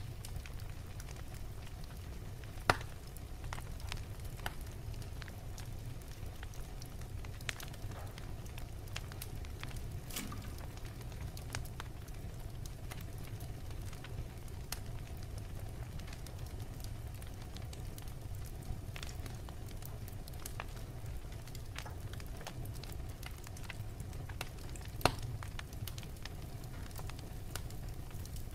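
Wood fire crackling in a fireplace: a steady low rumble of flames with scattered sharp pops. Two louder pops come about 3 seconds in and near the end.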